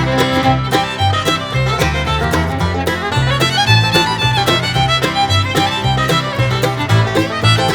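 Background music: an upbeat bluegrass-style tune with fiddle over a steady bass line, cutting off abruptly at the very end.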